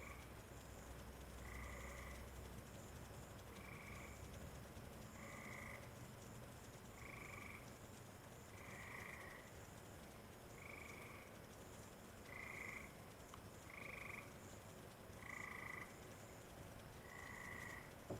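Frogs calling on a summer night: short, faint calls about half a second long, repeating steadily every second and a half or so.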